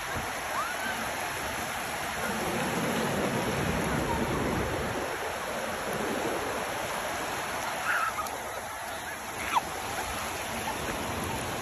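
Sea surf washing on a beach: a steady rushing noise that swells a little, with a few short faint calls over it.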